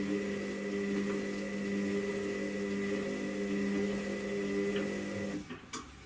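Front-loading washing machine's drum motor running with a steady hum as it turns the wash load. It stops about five seconds in, followed by a sharp click.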